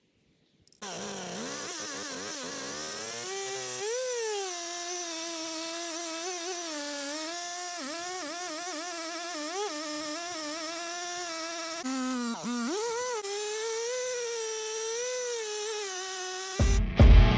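Chainsaw revving up about a second in, then running at high speed while cutting, its pitch wavering and dipping as the chain loads and unloads in the wood.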